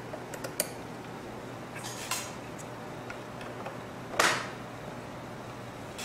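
Plastic handling sounds as a white plastic protective cover is fitted onto a fiber switch's cable tray. There are a few small clicks near the start, then two short plastic scrapes, the louder one a little after four seconds in.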